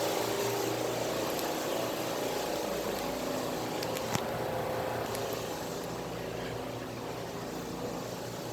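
Vending machine running with a steady mechanical hum, and a single sharp click about four seconds in.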